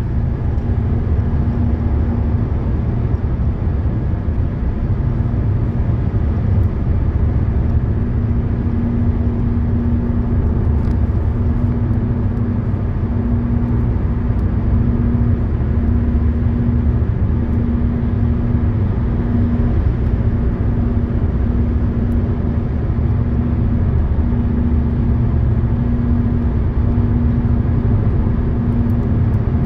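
Road and tyre noise inside a Hyundai Elantra's cabin cruising at highway speed: a steady low rumble, with a droning hum that swells and fades every second or two.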